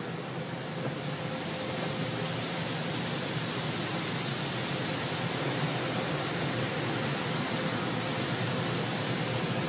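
Car wash equipment running with a steady rushing noise and a faint steady hum; the rushing grows a little louder about a second in.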